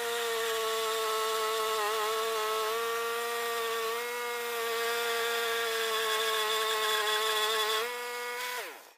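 Wood-Mizer LT10 portable bandsaw mill sawing through a maple log: a steady whine with slight dips in pitch as the blade takes load. Near the end the pitch falls and the sound dies away as the saw winds down.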